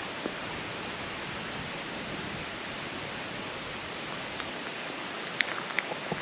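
Steady rushing noise, with a few light sharp clicks near the end.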